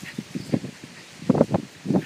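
Jack Russell terrier sniffing and snuffling hard at the ground in short irregular bursts, loudest about one and a half seconds in.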